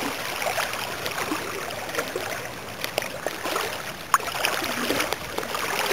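Creek water rushing steadily over a shallow riffle, with a few short sharp sounds about two, three and four seconds in.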